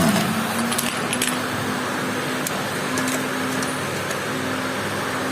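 A few light metallic clinks of tools or small metal parts being handled, over a steady mechanical hum with a constant low tone.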